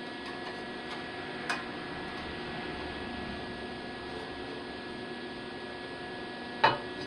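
Steady electrical hum, with a light click about a second and a half in and a sharp knock near the end.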